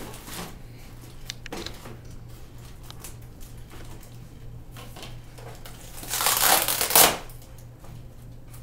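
Packaging being handled, with a few light clicks and knocks, then a loud crunching crinkle for about a second near the end. A low steady hum runs underneath.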